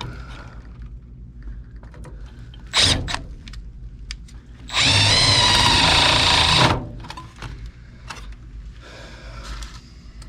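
Cordless power driver driving a screw: a short blip, then one run of about two seconds, with light clicks of handling around it.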